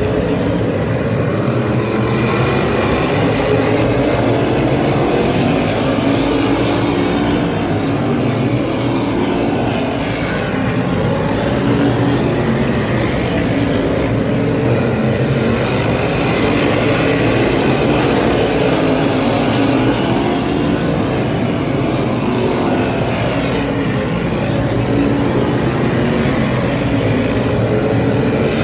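A pack of V8 modified race cars running at racing speed, several engines heard together, their pitch rising and falling as the cars go round the oval.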